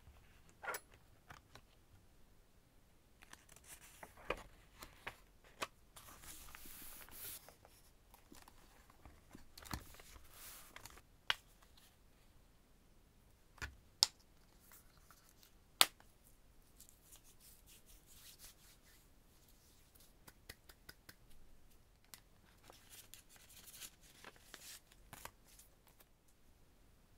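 Close-up handling of a paper journal and craft supplies: pages and plastic rustling, with scattered light taps. About halfway through come two sharp clicks as a plastic bottle's cap is opened.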